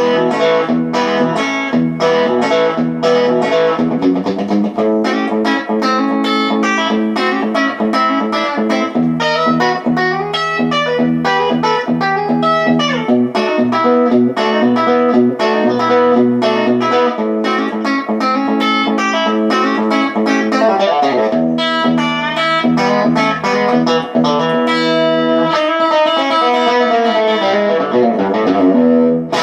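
Electric guitar music: quickly picked notes over held low notes.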